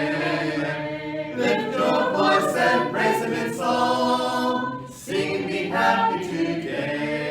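A group of voices singing a hymn a cappella, with no instruments, including a long held chord partway through.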